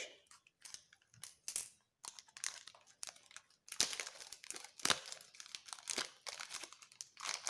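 The outer wrapping of a car first aid kit being cut open and handled: irregular crackles and rustles of packaging, sparse at first and busier from about two seconds in.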